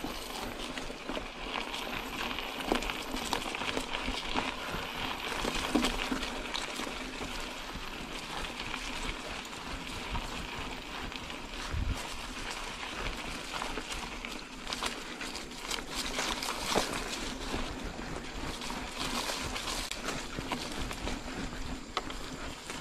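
Mountain bike being ridden over a rough trail: a steady rush of noise with frequent short rattles and clicks from the bike.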